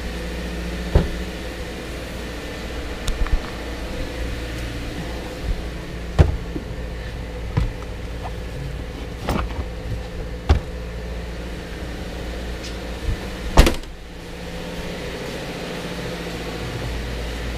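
A Subaru hatchback's rear hatch and doors being handled: several short knocks and clunks, the loudest a bang about three-quarters of the way through, over a steady low hum.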